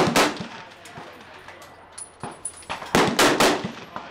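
Gunshots on a firing range: a loud crack just after the start, then three in quick succession about three seconds in, with fainter pops from other firing points between.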